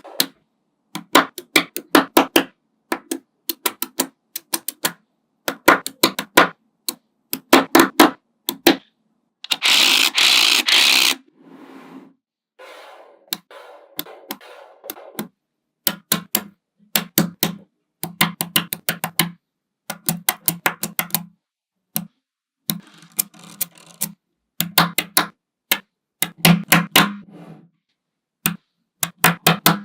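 Small magnetic balls clicking and snapping together in quick clusters of sharp clicks, with short pauses between them. About ten seconds in there is a dense rattling burst lasting a second or so.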